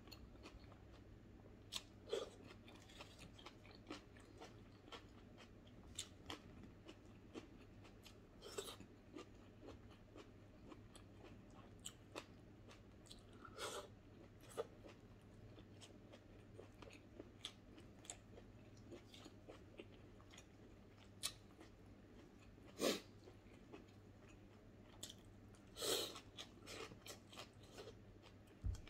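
A person eating with his hands and chewing with his mouth closed: faint, scattered chewing clicks, with a few louder smacks now and then.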